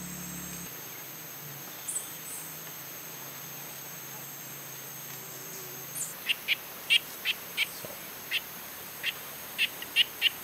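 Rainforest ambience: a steady high-pitched insect drone, joined about six seconds in by a string of short, loud high chirps, one or two a second at uneven intervals.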